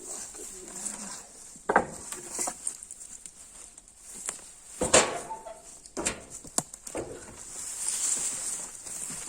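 A few sharp knocks and clatters, the two loudest about two and five seconds in, over a steady high hiss; no chainsaw running.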